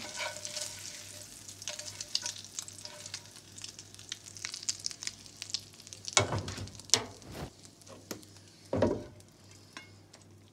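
Hot fat crackling and sizzling as an egg omelette with peppers, ham and sausage is slid from a frying pan onto a plate. About six seconds in, a utensil scrapes and knocks against the plate a few times, the last about nine seconds in.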